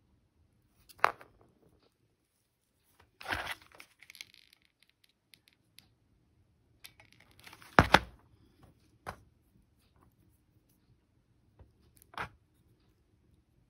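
Scattered small clicks and knocks from handling seashells, a metal ring and a hot glue gun on a cardboard work surface. A short scratchy rustle comes about three seconds in, and the loudest is a double knock about eight seconds in.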